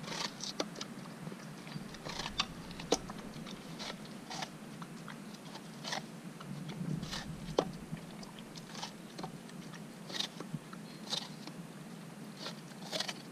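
Siberian husky biting and chewing a watermelon rind: irregular crunches and clicks, a few sharper than the rest.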